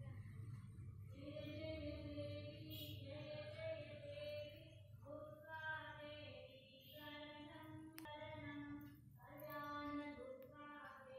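Soft background music of high voices singing long held notes in phrases a second or two long, with short breaks between them, over a faint low hum.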